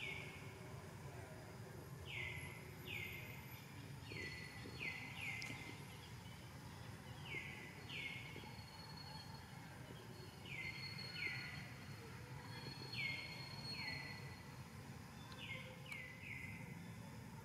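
A bird calling over and over: short downward-slurred notes, mostly in quick pairs and threes, over a low steady background rumble.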